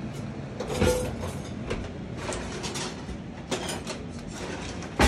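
Scattered knocks and clicks of kitchen handling at a stovetop pan, with a louder sharp knock near the end.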